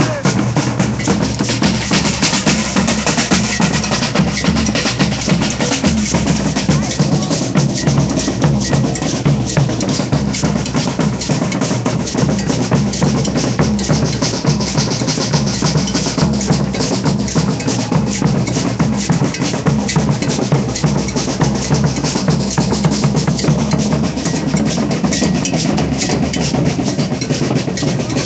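A Brazilian street percussion group drumming together in a dense, steady rhythm, with deep drums carrying the beat and fast strokes layered over it.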